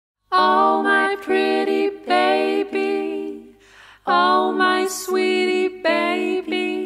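Music: a solo singing voice in long held phrases, with little or nothing behind it. It comes in out of silence about a third of a second in.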